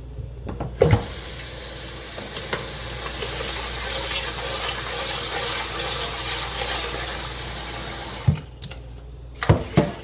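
Kitchen tap running steadily into a pot of rice to wash it, for about seven seconds, with a knock as it starts. A few sharp knocks follow near the end after the water stops.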